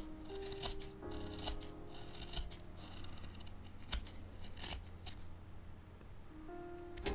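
Japanese carving knife (kogatana) slicing shavings from a soft paulownia wood block, with crisp cuts at irregular intervals, roughly one a second.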